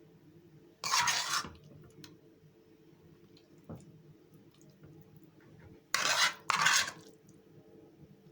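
Kitchen utensil scraping against cookware in three short strokes: one about a second in, then two in quick succession around six seconds.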